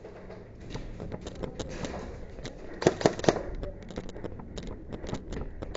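Airsoft guns firing during a match: scattered sharp pops and snaps, with a louder cluster of three or four shots about three seconds in.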